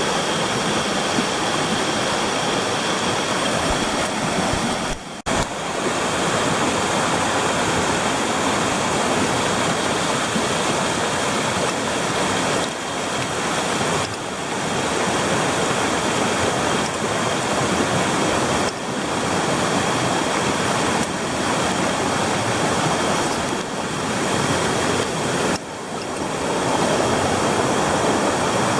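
Mountain stream water rushing steadily, dipping briefly a few times.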